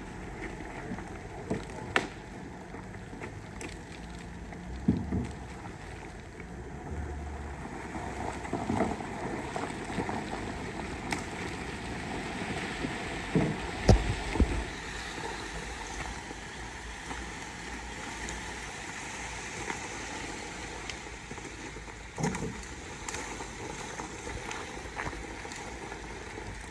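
A vehicle running slowly in first gear while it drags a fallen tree branch, giving a steady rumbling, scraping noise. Several sharp cracks and knocks come through it, the loudest about halfway through.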